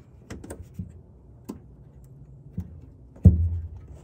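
Small plastic clicks and light knocks as a fuel line disconnect tool is worked around a quick-connect fuel line fitting, with one louder thump a little after three seconds.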